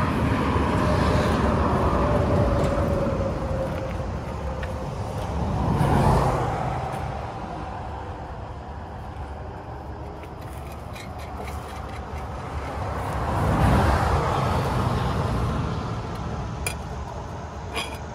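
Interstate traffic passing at speed: vehicles sweep by one after another in swells, the first with a tone that falls in pitch as it goes by, the loudest about six seconds in and again near fourteen seconds.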